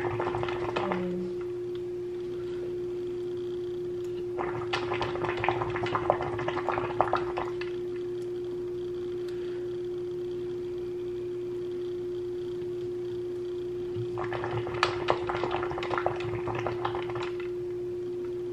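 Hookah water bubbling and gurgling twice as the hose is drawn on, each draw about three seconds long, the first a few seconds in and the second near the end. A steady hum runs underneath throughout.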